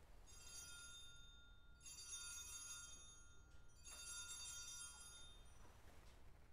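Altar bells rung three times, faint and high, each ring fading over about a second and a half: the signal of the elevation of the chalice at the consecration.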